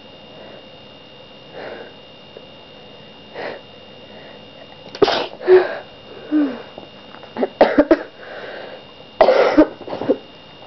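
A person sneezing several times in a row, the loud sneezes coming in a quick run from about halfway through, with quieter breaths before them.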